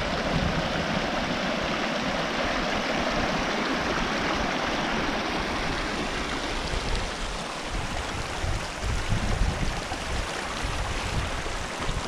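Shallow mountain creek running over rocks: a steady, full splashing babble of water.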